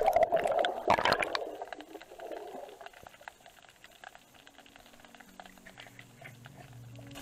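Muffled underwater sound through an action camera's waterproof housing. A loud rush of water and bubbles lasts about the first second and a half, followed by faint crackling and clicking. Soft, low sustained music tones fade in over the last couple of seconds.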